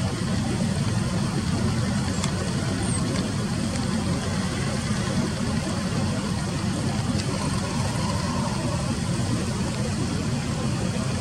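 Steady low background rumble with no clear bird call.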